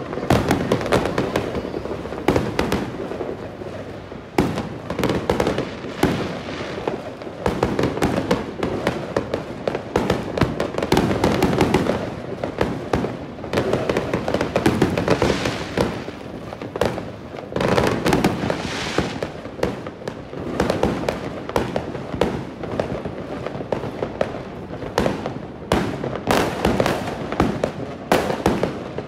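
Fireworks and firecrackers going off all over a city at once: a dense, unbroken crackle of many bangs and pops.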